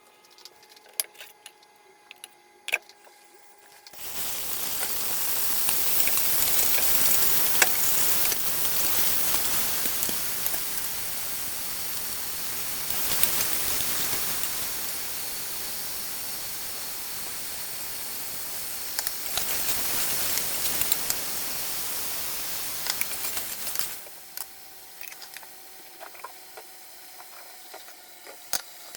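Food sizzling in hot oil in a cooking pot, starting abruptly about four seconds in and running loud for some twenty seconds before dropping away. Light clicks and taps come before and after.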